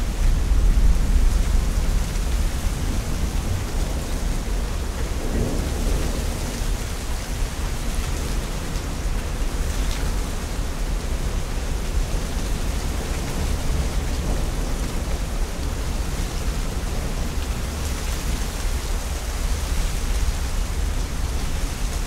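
Thunderstorm: steady rain with thunder rumbling low beneath it, loudest in the first two seconds, then settling into an even rain hiss with a continuing low rumble.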